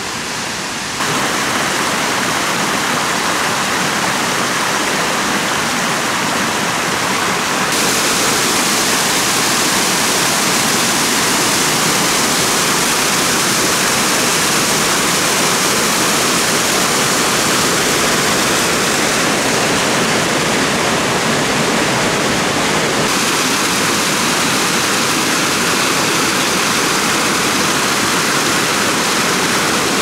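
Steady rushing of a mountain waterfall pouring into a pool. It grows louder about a second in and again around eight seconds in.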